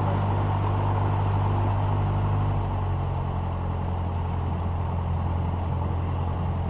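Single-engine light aircraft's piston engine and propeller running steadily on the ground, heard inside the cabin. The engine note shifts slightly about three seconds in.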